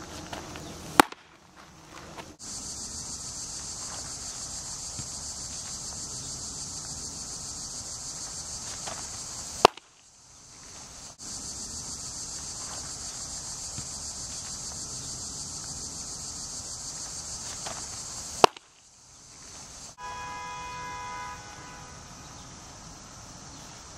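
Pitched baseball popping sharply into a catcher's mitt three times, about nine seconds apart, over a steady pulsing high drone of insects.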